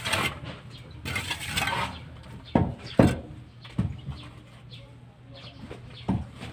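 Scraping of a mason's trowel against a rough concrete wall, two short stretches in the first two seconds, followed by four dull knocks spread over the rest.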